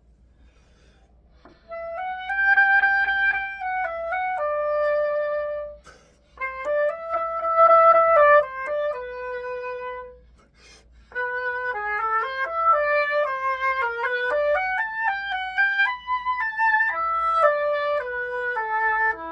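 Solo oboe playing a melody, starting about a second and a half in, with phrases separated by short breaths and a quicker run of notes in the second half.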